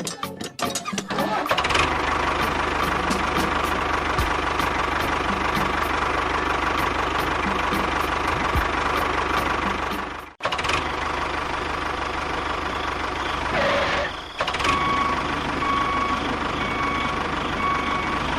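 An engine running steadily, with a brief cut-out a little past the middle. Near the end a series of evenly spaced short beeps, like a reversing alarm, sounds over it.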